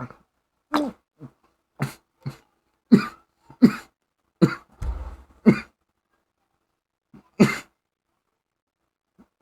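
A person coughing and clearing their throat in a run of about a dozen short, sharp bursts, after chewing sticky packaging-absorbent beads that cling inside the mouth. The bursts are densest in the first half, then pause before a few more near the end.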